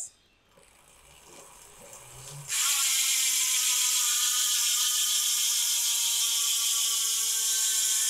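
Freehub of an Elite Wheels Edge carbon rear wheel buzzing as the lifted wheel spins freely. The pawl buzz starts suddenly about two and a half seconds in, after a faint quiet spin-up, and then runs on steadily, its pitch sinking slightly as the wheel slows.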